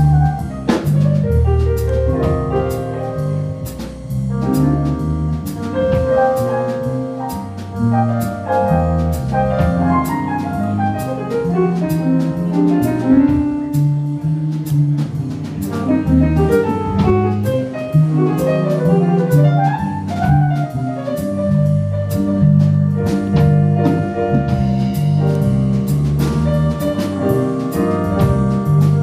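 Live jazz band playing: keyboard in a piano sound, with quick runs of notes up and down over steady bass notes, and a drum kit keeping time.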